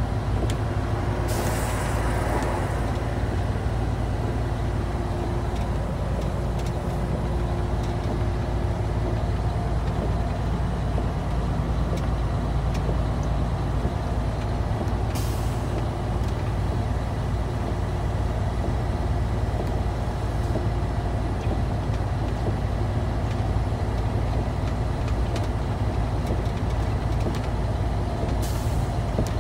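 Inside a semi-truck's cab while driving: the engine and road noise make a steady low drone. Three brief hisses break through, one near the start, one about halfway and one near the end.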